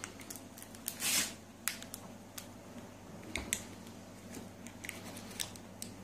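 Light clicks and knocks from a loaded dishwasher being handled as the door is brought shut, with a short hiss about a second in and a low steady hum underneath.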